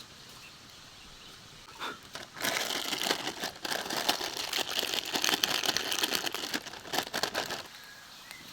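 Crinkling and rustling of a snack-chip packet being handled, a dense crackle starting about two seconds in and stopping about five seconds later.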